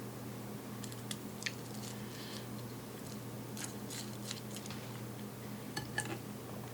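Scattered short, crisp clicks and crunches of a spoon working through a rice dish topped with crunchy fried onion, over a steady low hum.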